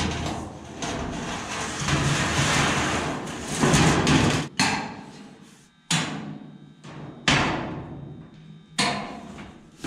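A large bead-rolled 18-gauge steel sheet flexing and rumbling with a loud wobble as it is carried and laid over a car's steel roof frame, then four sharp metal clanks, each ringing out briefly.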